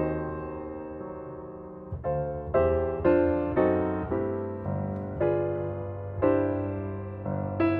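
Background piano music: a gentle melody of struck notes and chords, each ringing out and fading before the next.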